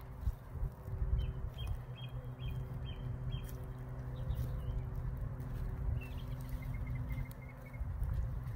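Small birds calling: a run of about six short chirps a second in, then a quick trill near the end. Underneath are a steady low engine hum and a heavy low rumble on the microphone.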